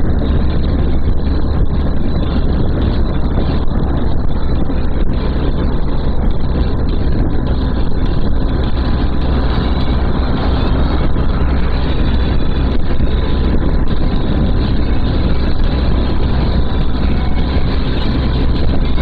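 Steady motorcycle riding noise at road speed: wind rush over the microphone with engine and road drone underneath.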